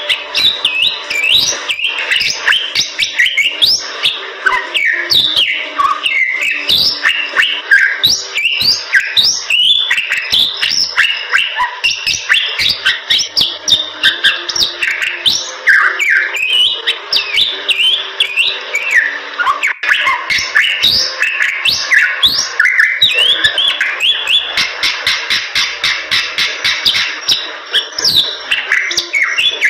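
Bali myna singing continuously, a dense run of rapid chirps, rising and falling whistles and sharp clicks with no break.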